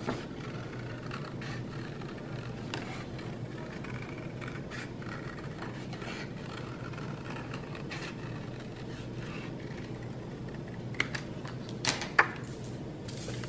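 Scissors snipping through red cardstock, with the paper rustling, over a steady low hum. Near the end a few sharp taps as the scissors and cut pieces are set down on the stone countertop.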